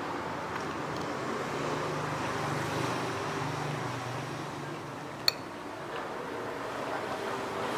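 Steady background noise with a low hum through the first few seconds, and one sharp clink of metal cutlery against a plate about five seconds in.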